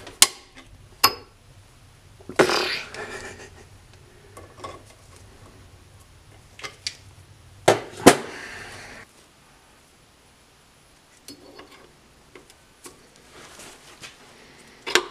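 Sharp metallic clicks and clinks of a steel retaining ring being fitted into the side bore of a differential's cast-iron case, a few scattered strikes with the loudest pair about eight seconds in.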